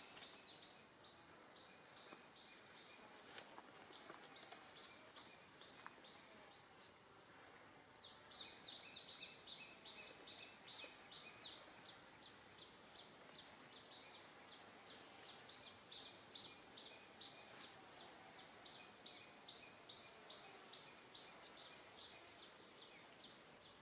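Faint outdoor ambience with a steady series of short, high chirps from a calling animal, several a second, loudest and quickest about a third of the way in.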